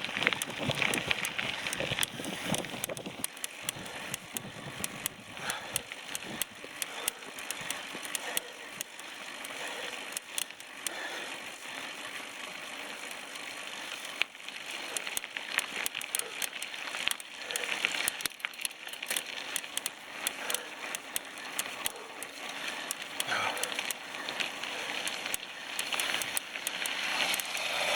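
Bicycle riding over rough ground: a steady rolling noise from the tyres with frequent small clicks and rattles from the bike.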